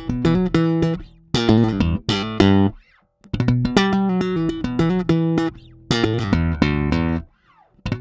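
Electric bass guitar played through a Harley Benton CS-5 compressor pedal: phrases of plucked notes broken by short pauses about a second in, just under three seconds in, and near the end. The compression is very subtle.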